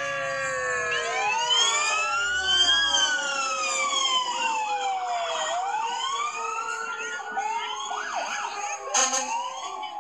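Several fire truck sirens wailing at once, their pitches sweeping up and down and crossing over one another. A short, loud blast comes about nine seconds in.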